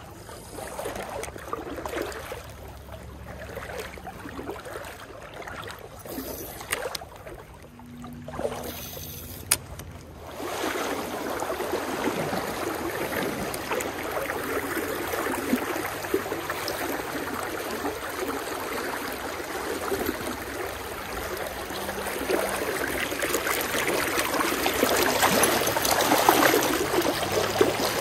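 Shallow trout stream running steadily over riffles and around logs, with a few faint clicks and knocks in the first ten seconds; the water gets louder about ten seconds in.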